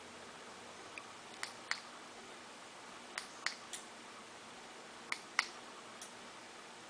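A series of small, sharp clicks at irregular intervals, several in quick pairs or threes, over a steady faint hiss.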